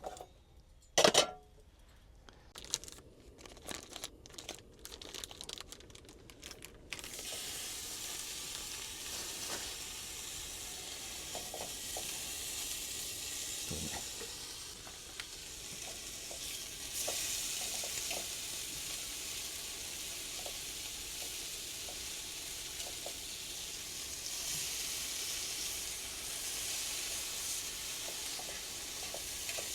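A few knocks and clicks, then food starts sizzling in a hot pan about seven seconds in and keeps up a steady hiss with small crackles.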